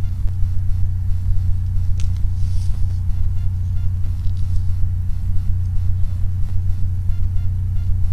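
Steady low hum of a trail camera's recording noise, with a few faint clicks and soft hissing sounds above it.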